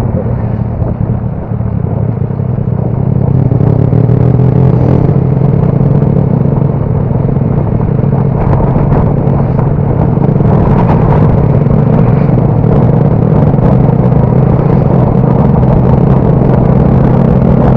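Motorcycle engine running steadily while riding, with a low hum under a broad rush of road and wind noise; it gets louder about three and a half seconds in.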